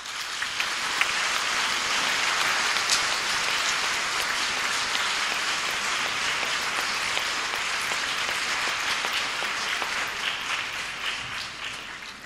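Audience applauding: dense clapping that starts as soon as the speech ends, holds steady, and dies away near the end.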